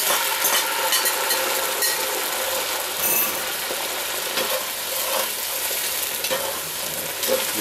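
Soaked beans and their liquid are poured into a cast-iron Dutch oven where diced onion, chili peppers and garlic are frying in oil. The pot keeps up a steady sizzle while a metal spatula stirs and scrapes inside it.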